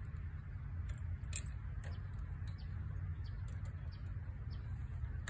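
Steady low wind rumble on the microphone, with scattered light clicks from hands working the controls of a small engine that is not yet running.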